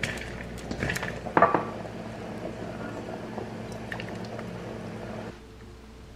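Kitchen tongs tossing salad leaves in a stainless steel mixing bowl, with a sharp metal clink about a second and a half in, then chicken soup being ladled into a small bowl.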